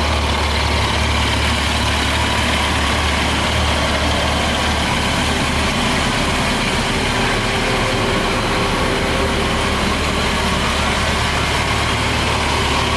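Yamaha FZ8 Fazer's inline-four engine idling steadily.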